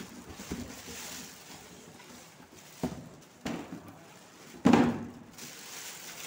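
Plastic packaging bag rustling and crinkling as it is pulled off a printer, with a few knocks and one heavier thump a little past the middle.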